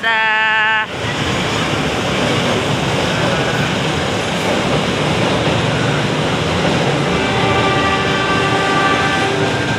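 Indonesian diesel-hauled passenger train departing: the locomotive's horn sounds one short blast that cuts off within the first second, then the engine and wheels run steadily as the train pulls out. About seven seconds in, faint steady tones join the rumble.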